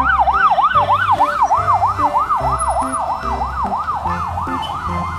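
Electronic police siren on a fast yelp, its pitch rising and falling about four times a second, over a low pulsing beat.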